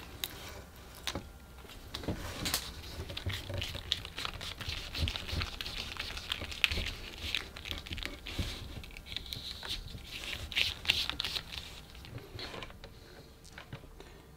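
Silicone LED diffuser strip being handled and worked along its cut slit: irregular crinkling, rubbing and small clicks, which die down near the end.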